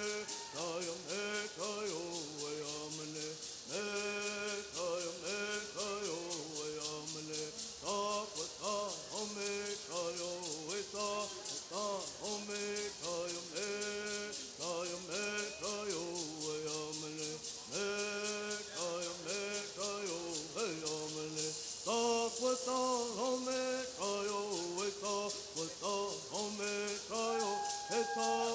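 Bird songs: a group of men singing together in unison over a steady, fast shaking of gourd rattles. About three-quarters of the way through, the singing moves higher and grows a little louder.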